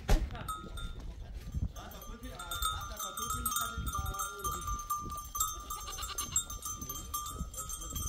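Many small livestock bells ringing steadily, as on a moving flock of sheep and goats, after a sharp knock at the very start.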